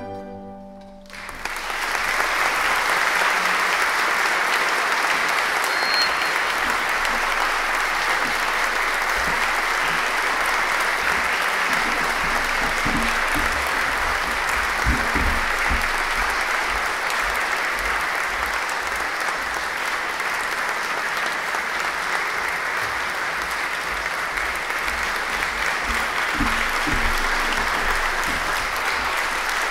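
The last chord of a tambura orchestra dies away in the first second, then the audience applauds steadily for the rest of the time.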